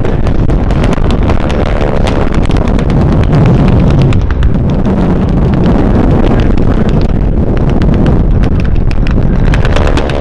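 Loud battle-reenactment din: a WWII warbird's engine running low over the field amid rapid crackling pops of blank gunfire, with wind buffeting the microphone.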